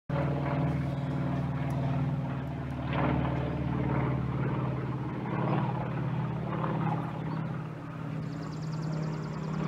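Twin-engine jet airliner flying overhead, its engines giving a steady rumble with a low drone, swelling and easing slightly as it passes.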